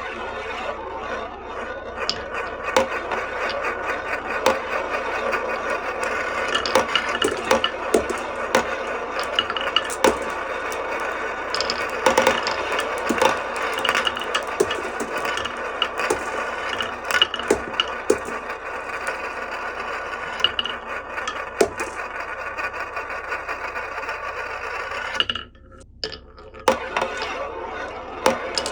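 Glass marbles rolling along a HABA wooden marble run: a continuous rolling rattle with frequent sharp clacks of marbles against the wooden track. It drops away briefly about 25 seconds in, then the clacks resume.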